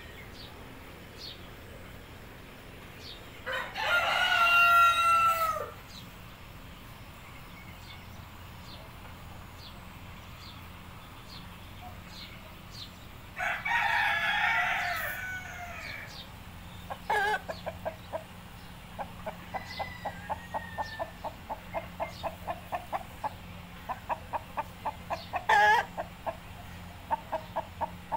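Columbian Wyandotte rooster crowing twice, each crow about two seconds long, the first a few seconds in and the second about halfway through. In the second half comes a rapid run of short clucks, about four or five a second.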